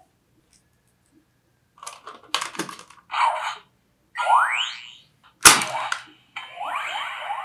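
Ben 10 Disc Ultimatrix toy's electronic sound effects from its small speaker as a disc is swapped: after a silent start, a string of clicks and short bursts, then a fast rising whoosh. About five and a half seconds in there is a single sharp hit, the loudest moment, followed by a sustained buzzing effect with sweeps.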